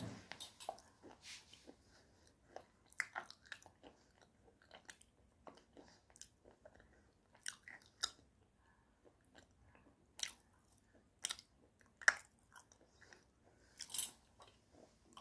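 Close-miked chewing of a hard white clay bar: irregular sharp crunches and crackles between quieter chewing, the loudest about twelve and fourteen seconds in.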